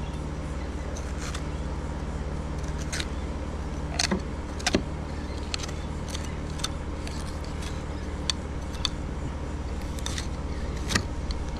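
Fillet knife cutting belly meat away from an amberjack's rib cage, giving scattered sharp clicks and ticks as the blade catches on the ribs, over a steady low engine-like hum.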